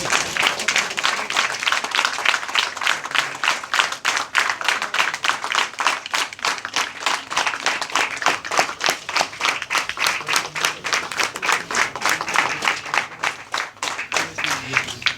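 An audience applauding, with sharp claps close by at about four a second over the general clapping; it stops suddenly.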